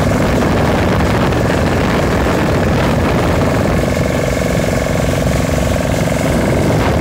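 Small motorboat's engine running steadily while the boat is under way, a constant drone with no change in speed.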